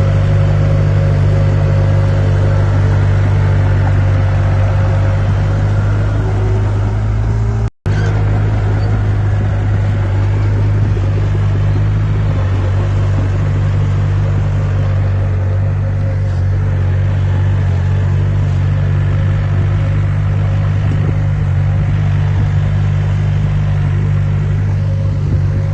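Heavy diesel engine of a construction machine running steadily, a loud low drone. The sound cuts out for an instant about eight seconds in.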